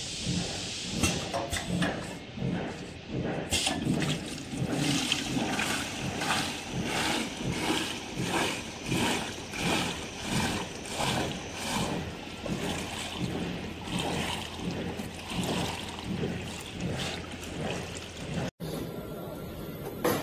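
Liquid running from a weighing filling machine's nozzles into plastic pails, a splashing, trickling flow that pulses about twice a second. It stops abruptly near the end.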